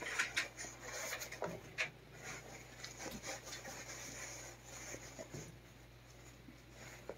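Faint, scattered rubbing and light scraping sounds with a few small clicks, over a steady low hum.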